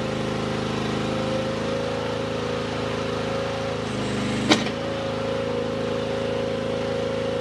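Derette DRT320 mini skid steer's Briggs & Stratton 13.5 hp petrol engine running steadily while the loader hydraulics are cycled, with a steady whine over the engine note. One sharp clank about halfway through.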